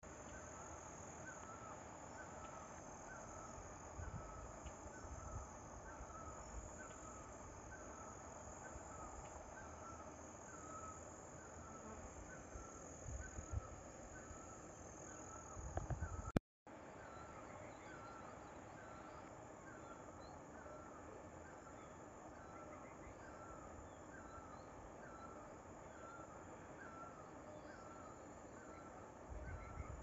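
Faint rural outdoor ambience: a bird repeats a short, high call roughly every three-quarters of a second over a steady high insect drone. The sound cuts out for a moment about halfway, then carries on.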